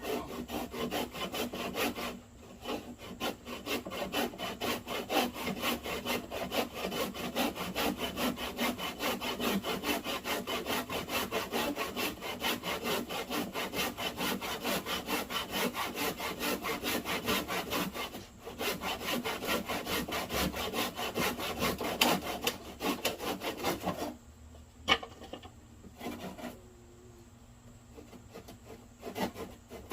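Hand saw cutting through a wooden beam in quick back-and-forth strokes, pausing briefly twice and stopping about three quarters of the way through. A few scattered knocks follow.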